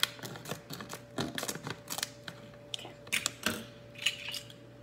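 Scattered clicks, clinks and brief rustles of small metal objects being handled while fetching a pair of scissors, over a faint steady hum.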